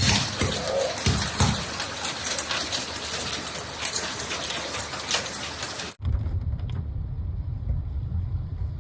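Heavy rain pouring down, a dense hiss flecked with the patter of drops. About six seconds in it cuts off abruptly to a low, steady rumble.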